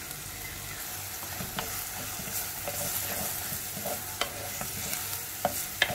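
Chopped onions, garlic, ginger and green chillies sizzling in oil in an earthenware clay pot as they are sautéed until soft, stirred with a wooden spatula that knocks against the pot a few times.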